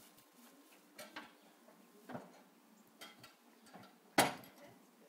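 Metal lids of a barrel smoker grill being lowered and shut: a few light clicks and knocks, then one loud metal clunk about four seconds in.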